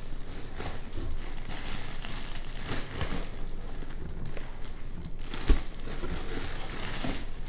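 Clear plastic packing wrap crinkling and rustling as it is handled and pulled open inside a cardboard shipping box, with a single dull thump about five and a half seconds in.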